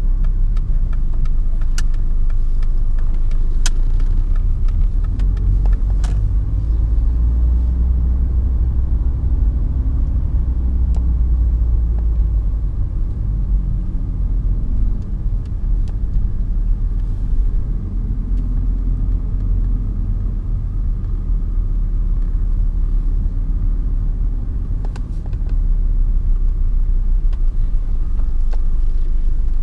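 1991 Mercedes-Benz 190D's 2.5-litre five-cylinder OM602 turbodiesel running under way, a steady low diesel rumble. It eases off a little about halfway through and again a few seconds before the end, then picks up again.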